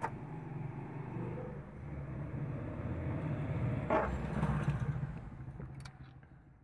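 Maruti Suzuki Omni van's small three-cylinder petrol engine idling with a steady low hum, heard from inside the cabin, with a sharp click about four seconds in and another near the end.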